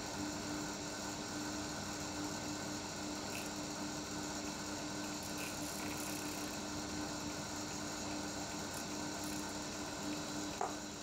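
Emco Unimat 3 lathe, repowered with a bench drill motor, running steadily: an even hum with one constant tone, while a needle file chamfers the end of the spinning brass workpiece. A brief click near the end.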